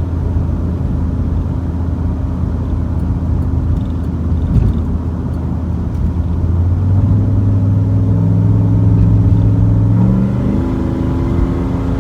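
Car engine running while driving: a steady low drone that climbs in pitch about seven seconds in and steps up again about ten seconds in as the engine speed rises.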